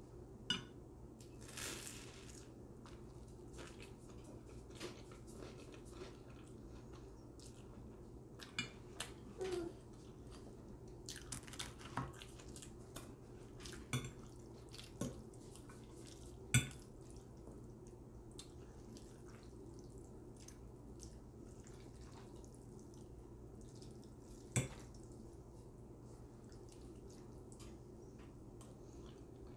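Close-miked eating: a crunchy bite into garlic toast near the start, then scattered sharp clinks and scrapes of a metal fork against a glass baking dish while twirling spaghetti, with small wet mouth and chewing sounds between them, over a steady low hum.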